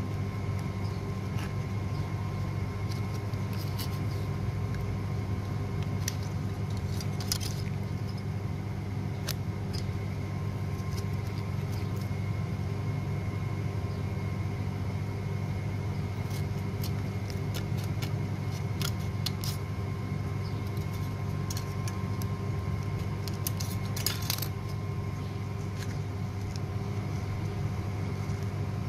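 A steady low motor-like hum runs throughout. Scattered light metallic clicks and clinks come from handling the mould and the rebuilt lead terminal post of a car battery, with bunches about 7 seconds in and again near 24 seconds.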